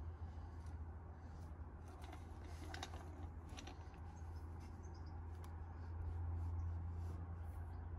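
Faint scattered clicks and rustles of a plastic syringe hose and its end cap being handled, over a steady low hum that grows louder near the end.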